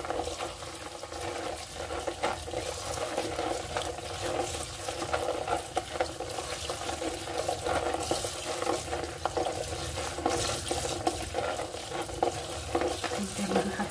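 Tap water running steadily into a plastic colander of fava beans in a stainless steel sink, with hands rubbing and turning the wet beans, giving many small clicks and splashes.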